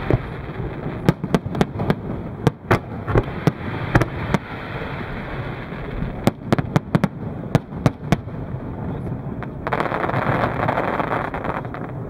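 Aerial firework shells bursting in a fast, irregular run of sharp bangs over a steady hiss. Near the end, a louder rush of hiss lasts a couple of seconds.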